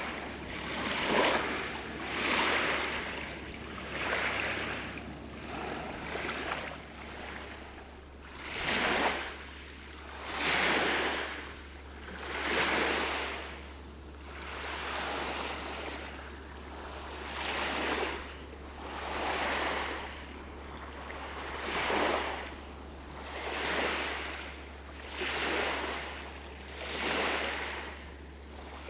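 Small lake waves washing onto a pebble shore, each one a rising and falling hiss, coming in a steady rhythm about every two seconds.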